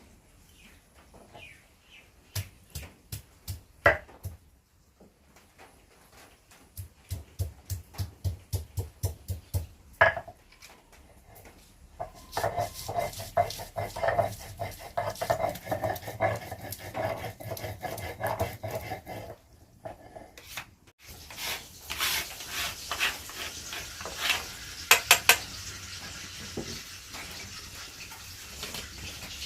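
Pots, pans and metal utensils clattering and knocking as they are handled, with a run of about a dozen evenly spaced knocks, roughly three a second, partway through.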